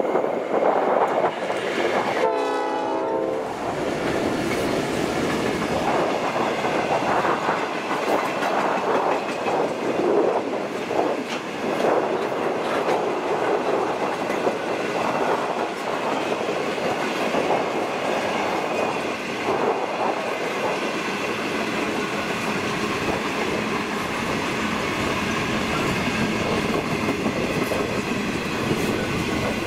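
Freight train passing: a short locomotive horn blast about two seconds in, falling in pitch, then a long string of wagons rolling by with steady wheel noise and clickety-clack over the rail joints.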